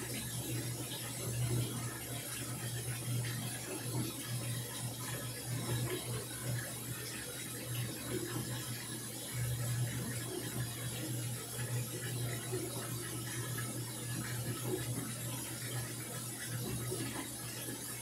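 Samsung top-loading washing machine filling: a stream of water pouring from the inlet into the drum and splashing onto the clothes, over a steady low machine hum.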